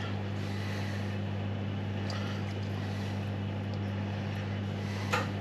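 Steady low hum from a running fan or motor, with a faint tap near the end.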